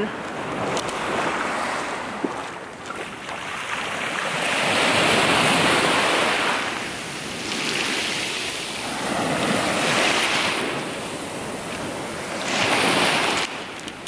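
Sea surf washing in over a stony shore, swelling and falling back in four surges.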